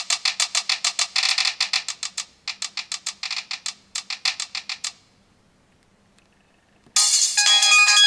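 Samsung X680 flip phone's speaker playing built-in ringtone previews. A bright, rapid pulsing tone of about six notes a second in short runs stops about five seconds in. After a pause of about two seconds a different ringtone starts, a melody of distinct notes.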